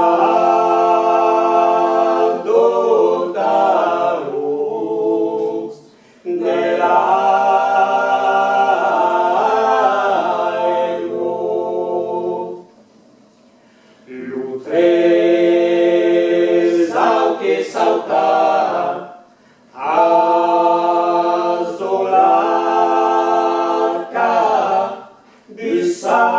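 Mixed a cappella vocal quartet, three men and a woman, singing in harmony: phrases of held chords broken by short pauses about every six seconds, the longest pause about halfway through.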